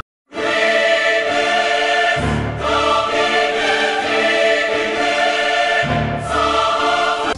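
A choir singing a loud, sustained chord as a dramatic music sting, starting abruptly after a brief silence. Deep low notes swell in about two seconds in and again near six seconds.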